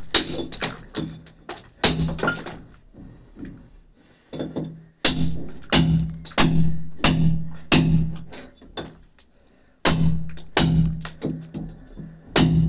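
Hammer blows on a steel chisel cutting a chase into a brick wall: sharp, ringing metallic strikes about two a second, in runs broken by short pauses.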